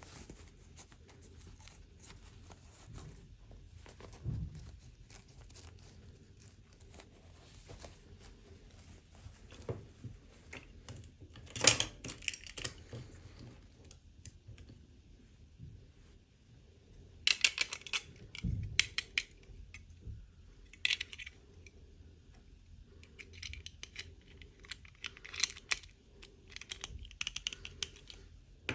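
Toy packaging being handled and opened: small clicks and taps, with a sharp crackle about twelve seconds in and bursts of crisp crinkling and rustling later on.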